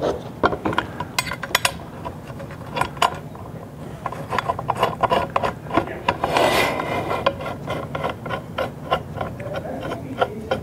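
M8 screws being turned in by hand through a roller plate into the roller's shaft end, with the metal parts handled against each other. Irregular small metal clicks and taps, with a scraping rub about six seconds in.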